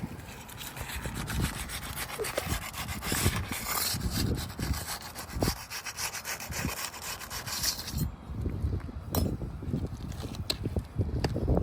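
Hand tool scraping and prying under asphalt roof shingles to break their seal and free the nails: a rapid rough rasping for about eight seconds, then a few sharp clicks.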